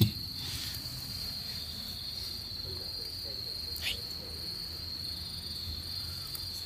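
Crickets trilling in one steady, unbroken high-pitched note over a low background rumble, with a short tap about four seconds in.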